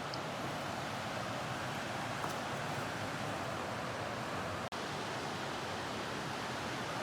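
Steady rush of fast-flowing water from a mountain river or waterfall, with a split-second dropout about two-thirds of the way through.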